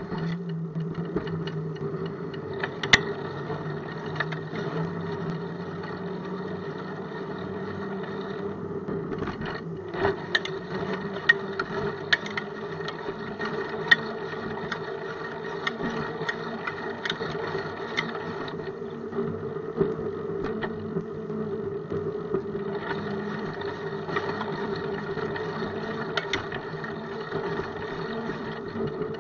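Bicycle rolling over pavement and concrete sidewalk, heard through a camera mounted on the bike: a steady hum with constant rattling. Sharp knocks come now and then as the wheel goes over cracks and slab joints.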